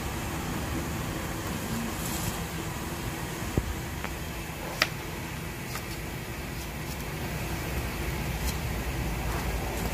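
Knife tapping and cutting on a wooden chopping block: a few faint ticks and two sharp knocks about 3.5 and 5 seconds in, over a steady background hum.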